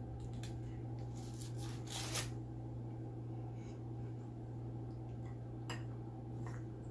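Close-up eating sounds: chewing a ground beef burrito, with scattered small clicks and a sharper crackle about two seconds in. A steady low hum sits underneath.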